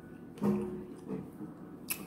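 A woman's short closed-mouth hum on one steady pitch, about half a second long, followed by a fainter one, then a sharp mouth click just before she speaks again.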